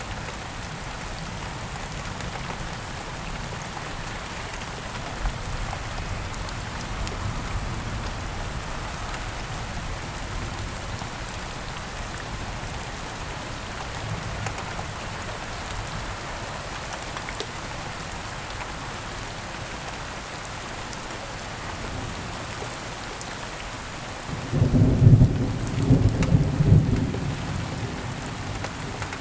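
Steady rain falling, with low thunder rumbling in the background, and a loud clap of thunder near the end that rumbles for about two to three seconds.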